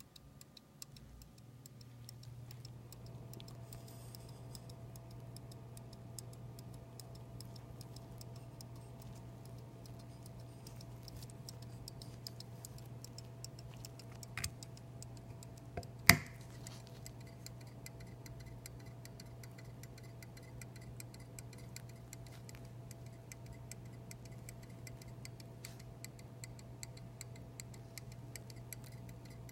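Antique verge fusee pocket watch ticking fast and steadily. A single sharp click about halfway through, from the watch being handled, is the loudest sound.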